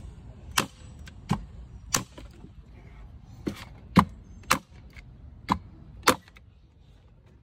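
Bostitch 2-in-1 corded electric staple gun firing staples through carpet treads into wooden stair steps: about eight sharp snapping shots at uneven intervals over six seconds.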